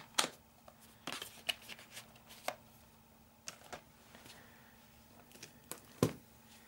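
Handling noise from a metal Blu-ray steelbook case being picked up and set aside on a cloth: scattered light taps and rustles, with a sharper knock near the end.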